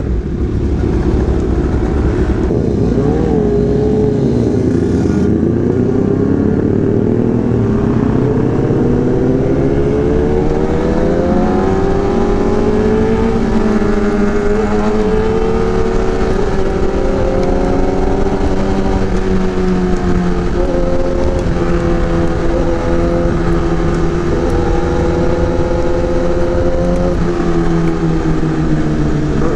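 Kawasaki ZX-10R inline-four engine through an Arrow racing exhaust, heard while riding. The pitch climbs gradually a few seconds in, holds at a steady cruising speed, and eases down near the end.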